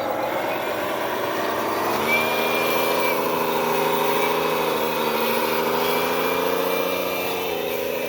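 Small electric motors of RC construction-equipment models running; about two seconds in a steady pitched whine comes in, wavers slightly in pitch, and cuts out near the end.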